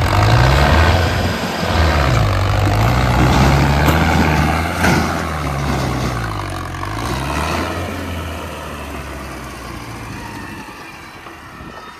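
Mahindra Arjun tractor's diesel engine labouring under heavy load as it hauls a trolley up a steep dirt slope, its pitch dipping and rising, with a sharp knock about five seconds in. The engine eases off and grows quieter near the end.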